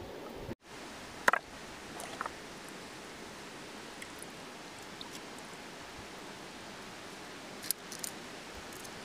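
Steady hiss of shallow river water running among stones, with a few light splashes and knocks, a couple early on and a pair near the end, as hands feel through the water and stones.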